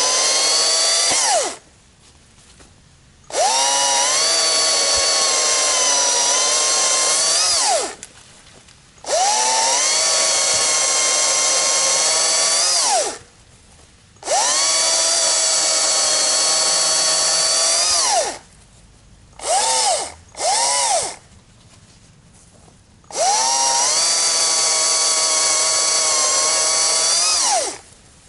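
Stihl MSA 200 C battery chainsaw bucking firewood: its electric motor whines, sagging in pitch as the chain bites into the wood and rising as it cuts through, then stops dead between cuts. Five cuts with short pauses, and two quick blips of the trigger around twenty seconds in.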